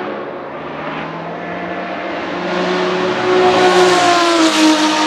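Porsche 917K's 4.5-litre flat-12 racing engine at speed, approaching and growing louder over the last two seconds as the car comes past. Its pitch drops as it passes, near the end.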